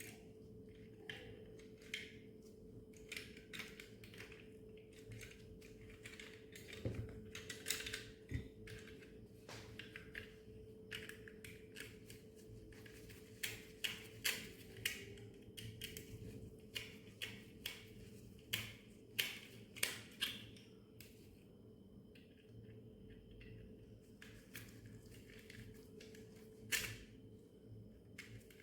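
Small plastic toy parts being handled and taken apart: irregular light clicks and taps, some in quick clusters, over a faint steady hum.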